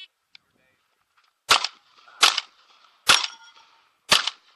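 Four shotgun shots fired in quick succession, about a second apart, each a sharp report with a short echo.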